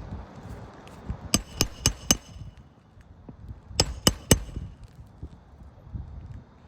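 Hammer blows on nails during a roof shingle repair: four quick strikes, a short pause, then three more, each with a brief metallic ring.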